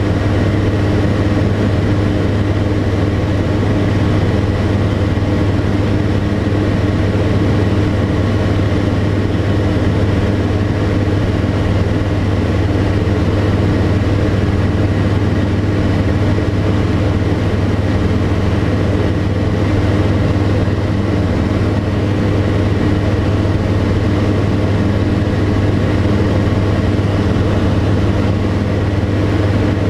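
Tecnam P92 Echo Super light aircraft's Rotax 912 flat-four engine and propeller droning steadily in flight, at constant power with an unchanging pitch.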